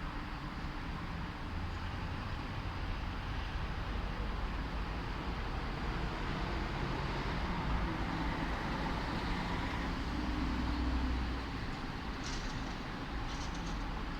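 City street traffic: a steady wash of engine and tyre noise, with a deeper vehicle rumble that builds through the middle and eases off about eleven seconds in. Two brief high-pitched sounds come near the end.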